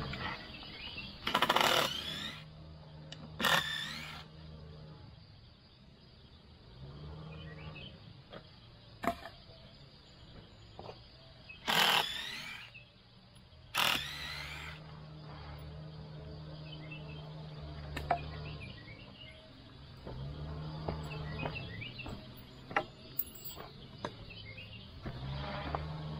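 Wooden concrete form braces and cleats being pried off a retaining wall form: four short, loud scraping screeches of wood and nails being pulled, with scattered knocks in between.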